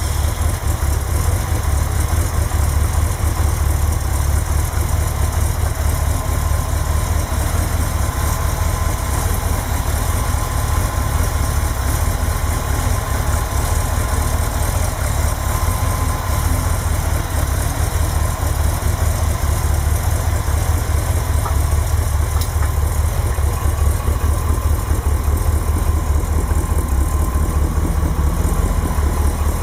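1955 Buick Super's 322 cubic-inch Nailhead V8, freshly restored, idling steadily with a deep low rumble just after being started.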